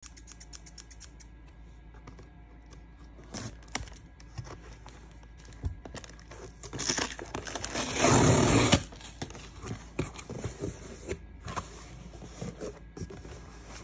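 Packing tape on a cardboard shipping box being cut with scissors, with a quick run of small clicks at the start, then ripped off the cardboard in one long, loud tear about seven seconds in, followed by the rustle and scrape of the cardboard flaps being opened.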